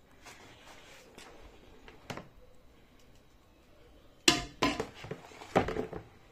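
Metal serving spoon scraping and knocking against a steel cooking pot while scooping out biryani rice: light scraping and a sharp click early on, then two loud clatters in the second half.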